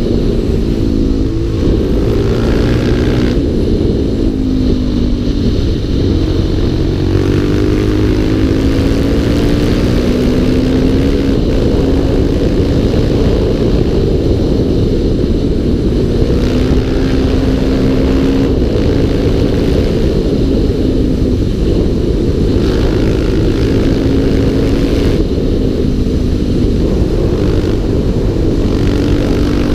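Single-cylinder four-stroke motorcycle engine heard on board, accelerating through the gears: its pitch climbs, drops at each shift and climbs again, several times over.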